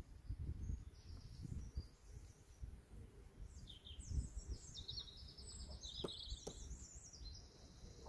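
Small birds chirping and trilling, busiest in the second half, over a low rumble on the microphone. Two sharp clicks about six seconds in come as the hive frames are worked with a hive tool.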